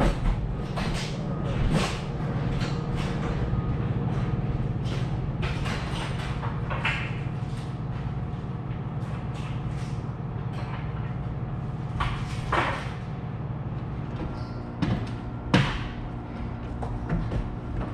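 A trailer's rear door being pulled shut, with knocks and rattles over a steady low hum.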